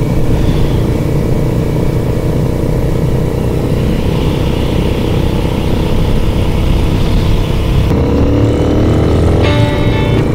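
Royal Enfield 650 parallel-twin engine running steadily while being ridden, picking up revs about eight seconds in. Music comes in near the end.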